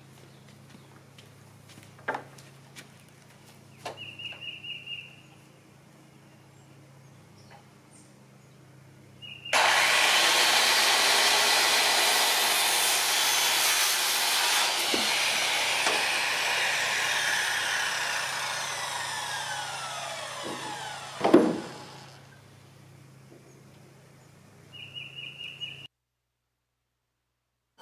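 Corded circular saw running and cutting through a sheet of plastic lattice for about ten seconds, its pitch sliding down as the blade winds down, followed by a single loud clack.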